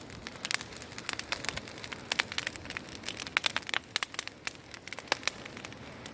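Bonfire of rubbish burning, crackling with irregular sharp pops and snaps over a low steady hiss.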